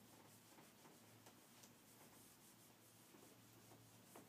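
Near silence, with faint rubbing of an eraser on a whiteboard and light marker strokes on the board.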